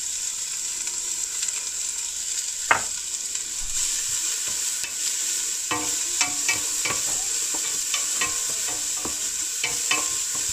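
Chopped onion and garlic sizzling as they sauté in a stainless steel pot, stirred with a wooden spoon that scrapes the pot bottom. There is one knock just under 3 seconds in, and the scraping strokes come thick and fast from about halfway in.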